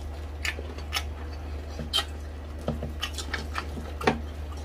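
Close-up eating sounds: chewing and crunching crispy pata, deep-fried pork leg, and rice, heard as scattered sharp crackles and clicks, the loudest about four seconds in, over a low steady hum.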